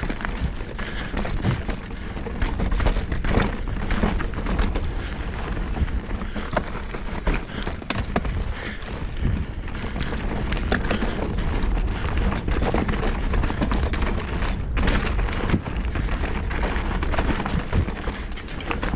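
Mountain bike descending a dry dirt trail at speed: a continuous rush of tyre and wind noise, with frequent sharp clattering knocks as the bike takes bumps.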